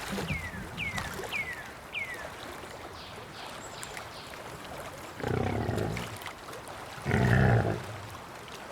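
Swamp ambience: faint trickling water with four quick descending bird chirps in the first two seconds, then two growling animal roars of about a second each, a little past halfway and again about two seconds later.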